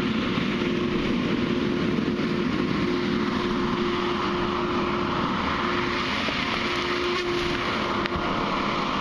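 A heavy machine's engine running steadily, with a constant whine over a broad, even noise.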